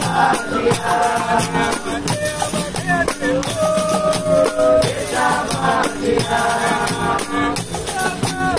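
Capoeira roda music: berimbaus played in a steady rhythm with the rattle of caxixi shakers and the jingles of a pandeiro, under voices singing.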